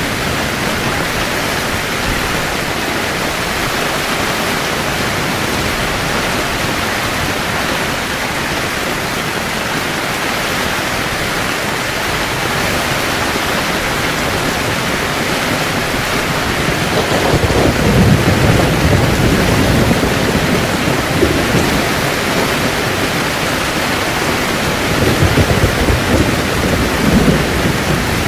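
Heavy rain falling steadily on a camping tent, with thunder rumbling twice: a long roll about two-thirds of the way in and a shorter, choppier one near the end.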